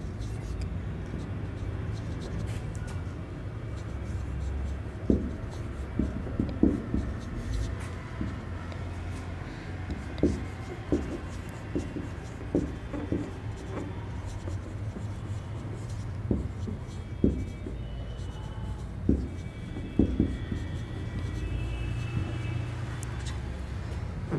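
Marker writing on a whiteboard: a run of short strokes and taps over a steady low hum.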